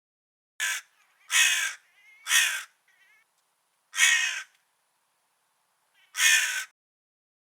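Crow cawing: five harsh caws at uneven intervals, the first one short.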